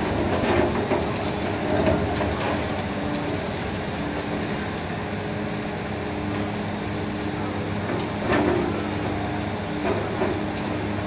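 Demolition excavator's engine and hydraulics running steadily as its hydraulic jaw crushes the concrete of the building, with crunches of breaking concrete and falling debris near the start and again about eight seconds in.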